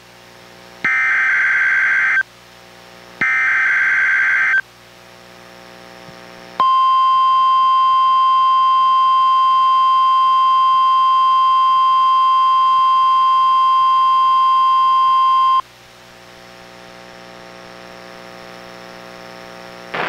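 NOAA Weather Radio test received on a Reecom R-1630 weather radio: two short screeching bursts of SAME digital header data, then a steady single-pitch 1050 Hz warning alarm tone held for about nine seconds, cutting off sharply. A faint electrical hum fills the gaps.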